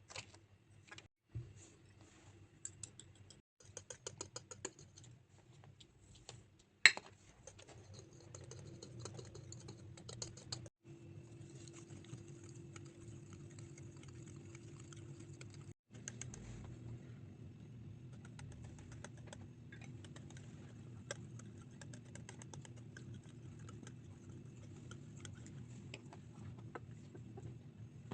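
Small utensils and containers clicking and tapping while tiny ingredients are handled, many quick light clicks with one sharp knock about seven seconds in. After that a faint steady hum runs under continued light ticking.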